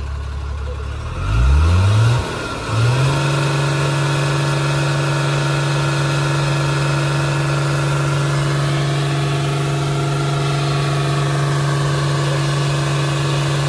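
Tata Signa truck's diesel engine: it rises from idle in two quick revs about a second in, then holds steady at a higher speed as the loaded truck pulls through deep mud.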